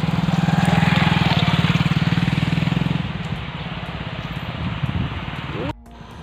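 A motorcycle engine passing close by, loudest about a second in and then fading away. The sound drops off suddenly near the end.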